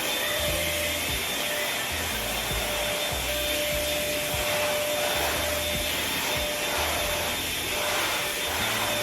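An electric appliance motor running steadily, a rushing hiss with a constant high whine, over soft background music.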